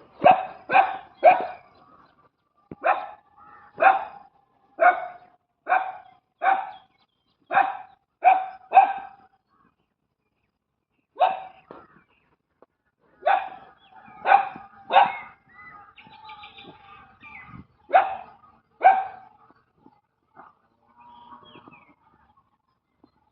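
Street dogs barking in short single barks, about one a second. The barks stop briefly around ten seconds in, then start again more irregularly, with fainter sounds between them, and thin out near the end.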